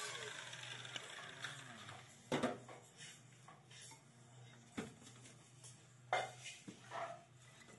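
A handful of short, sharp metallic knocks and clinks, spread a second or two apart and loudest about two and a half and six seconds in, over a faint steady low hum.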